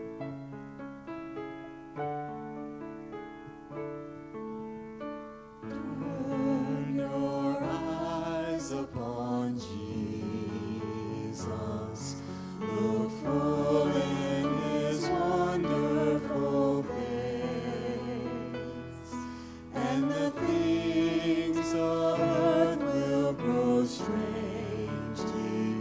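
Church worship band playing a song: a keyboard alone for about the first six seconds, then bass, electric guitar and drums come in and the vocalists sing.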